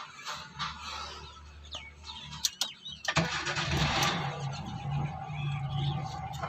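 Hyundai Santro's engine starting about three seconds in, after a few sharp clicks, and then running.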